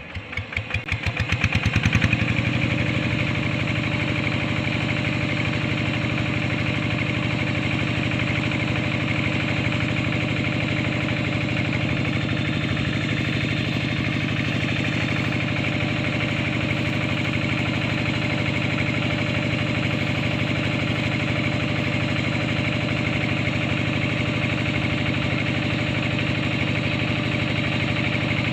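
Single-cylinder diesel engine of a rice-field hand tractor being hand-cranked. Its strokes speed up and get louder, it catches about two seconds in, and it then runs steadily at idle.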